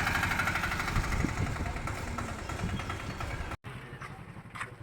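An engine running with an even pulse, slowly fading, then cut off abruptly about three and a half seconds in, leaving quieter background sound with a single click near the end.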